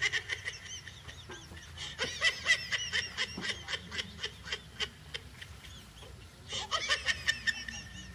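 High-pitched, cackling laugh sound effect: quick honk-like hoots, several a second, in three spells.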